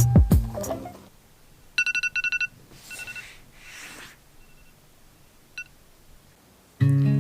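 A quick run of six or seven short electronic beeps from a small device, followed by faint rustling, a lone soft beep and a click. Background music fades out at the start and comes back in near the end.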